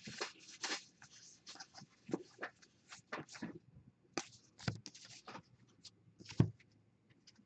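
Cardboard trading cards sliding and rubbing against each other in short, irregular strokes as a stack is thumbed through card by card, with one louder thump about six seconds in.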